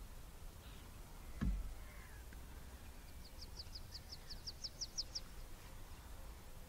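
A bird calls a rapid run of about a dozen short, high, down-slurred notes, about six a second, growing louder over some two seconds. Earlier, about one and a half seconds in, there is a single low thump, over a faint low background rumble.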